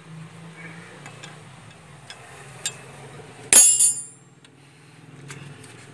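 A steel wrench clanks once against engine metal a little past halfway, with a short bright ring. A few faint ticks and taps come before it, over a steady low hum.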